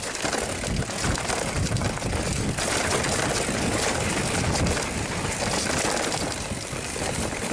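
Mountain bike being ridden over a rough trail: a steady rush of wind buffeting the microphone, with tyres on dirt and stones and constant small clatters and knocks from the bike.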